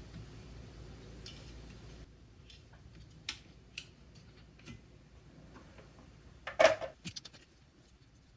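Small clicks and taps of tools and parts being handled on a workbench, with a cluster of louder clicks about six and a half seconds in. A low steady hum underneath stops about two seconds in.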